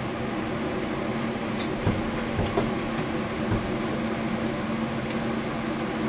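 A steady mechanical hum with a constant low tone, under a few light knocks as a small red refrigerator is gripped and handled.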